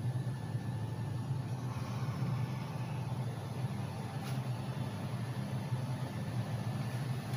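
A steady low mechanical hum, like machinery running.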